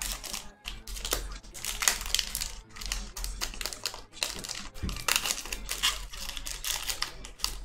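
Foil wrapper of a Panini Illusions trading-card pack crinkling and crackling as it is handled and torn open by hand, in a quick, irregular run of crackles.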